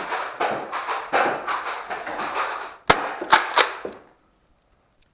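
Nerf Rival blaster fire and foam balls striking: a rapid run of clattering, then three sharp cracks about three seconds in, stopping a second later.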